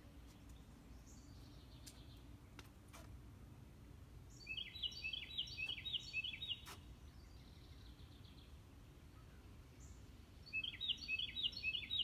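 A songbird singing twice, each song a quick run of repeated high chirps lasting about two seconds: once about four seconds in and again near the end. Steady low background noise runs underneath.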